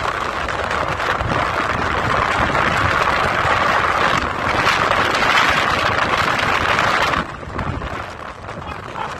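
Steady rush of wind and road noise from a moving car, heard through its open window. It drops sharply about seven seconds in.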